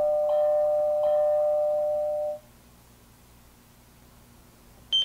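Escort SmartRadar alert chime, doorbell-like, sounding for a detected Ka-band POP radar shot from an MPH Bee III. The chime is struck again twice and fades out about two and a half seconds in. A short high beep comes right at the end.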